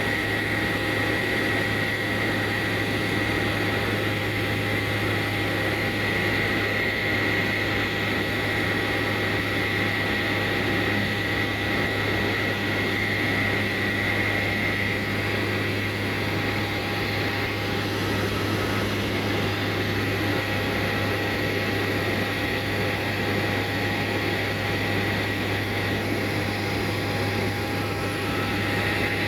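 Steady drone of a small propeller airplane's engine and propeller, heard from inside the cabin in level flight, with a constant low hum and a steady high whine over it.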